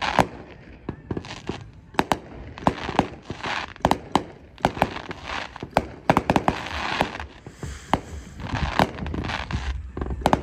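Red Apple Fireworks Platinum Circus 64-shot aerial finale cake firing: many sharp bangs of shots launching and bursting, often several in quick succession, with stretches of hissing noise between them.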